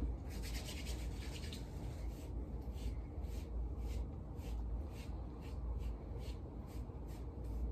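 Short rubbing strokes against hair, about three a second, as edge-control gel is smoothed into the hairline; a denser rustle in the first second and a half.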